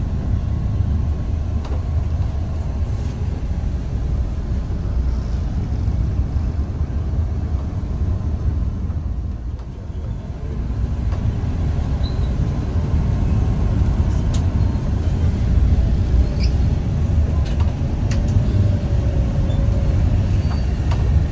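Low, steady rumble of the bus's engine and road noise heard from inside the cabin, with a few faint clicks. The sound dips briefly about ten seconds in.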